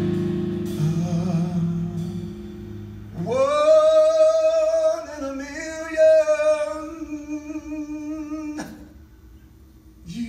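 A male vocalist sings one long held note with a slight vibrato into a microphone. It begins about three seconds in over a sustained chord from the backing music that fades away. The note ends with a small click a couple of seconds before the end, and after a short hush he starts the next note.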